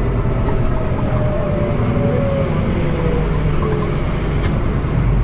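Scania N320UB city bus running under way, heard from inside the cabin: the low drone of its five-cylinder diesel with the ZF automatic gearbox, and a whine that falls in pitch over the first few seconds. The engine grows louder near the end.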